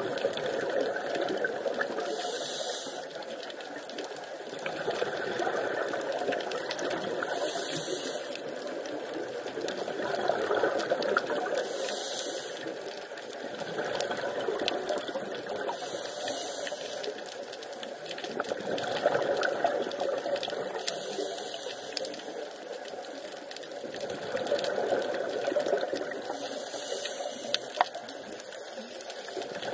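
Scuba diver breathing through a regulator underwater, heard on the camera's microphone: a continuous bubbling hiss that swells and fades in a slow cycle, about one breath every four to five seconds.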